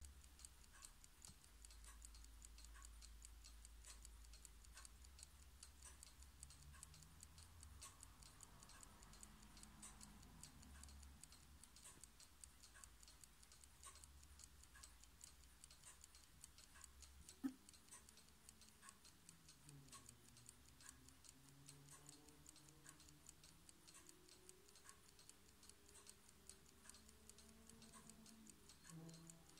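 Platform escapement of a mechanical clock movement ticking: the balance wheel oscillates and the escape wheel advances in a faint, rapid, even ticking. One single louder click comes about halfway through.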